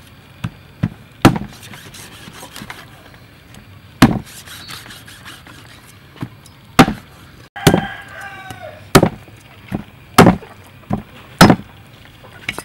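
Steel cleaver chopping stingray on a round wooden chopping block: about a dozen sharp single chops at uneven intervals, coming faster in the second half.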